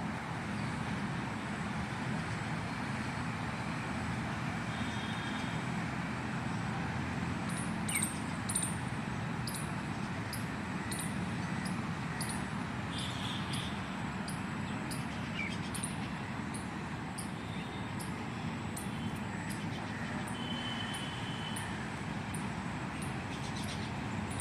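Squirrel chirping: a run of short, very high chirps, about two a second, starting about a third of the way in. Steady traffic noise underneath.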